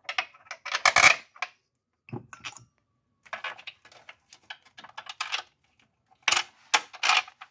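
Metal clinking and rattling of bolts being handled and started by hand into an intake manifold, with sharp clicks loudest about a second in and again near the end.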